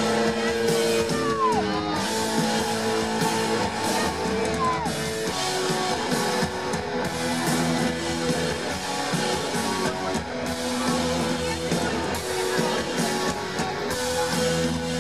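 Live rock band playing on a festival PA, led by guitar with drums, heard from within the audience.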